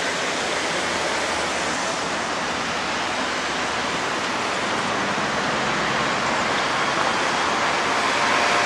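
Steady rushing hiss of outdoor street ambience, with no voices. It grows slightly louder near the end, where a faint humming tone comes in.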